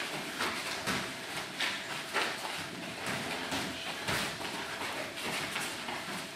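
Irregular thuds and slaps of MMA sparring: gloved punches and kicks landing and feet moving on the padded mat, with one heavier thud about four seconds in.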